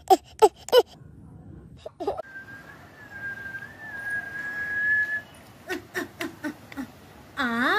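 A steady whistle held for about three seconds, set between runs of short bouncy cartoon-like chirps. Near the end comes a long swooping meow-like call.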